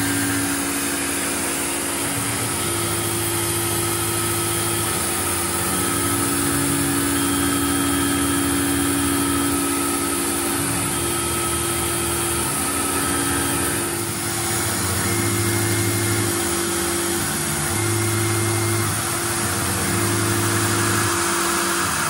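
CNC milling machine contour-cutting aluminium with an end mill, the spindle and cut running steadily over the hiss of the air-driven coolant mister. A lower hum and tone change every second or two as the cut moves along the outline.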